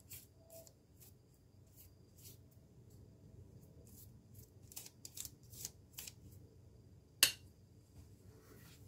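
Faint, scattered scratchy ticks and light rubbing as hands work over a parchment-lined baking sheet, oiling raw samosas, with one sharper click about seven seconds in.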